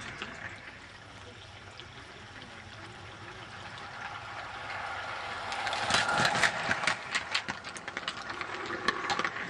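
16mm-scale garden railway train running past close by, its small wagons rattling and wheels clicking rapidly over the track, getting louder about halfway through.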